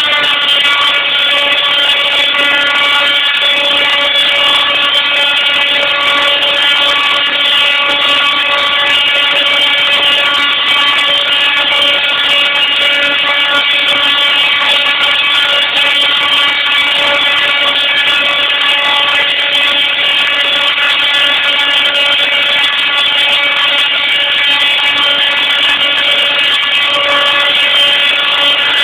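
Tesla coil discharging with a loud, steady, harsh buzz at one pitch.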